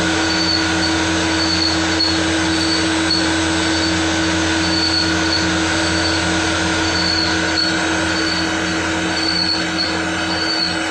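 CNC turn-mill lathe running and machining brass: a steady mechanical whine over a constant noise, with a high squealing tone that comes and goes in short pulses.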